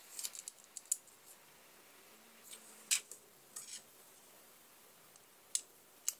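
A few scattered light metallic clicks and taps as a soldering iron's metal barrel and fittings are handled and pushed together by hand, the sharpest about three seconds in and again near the end.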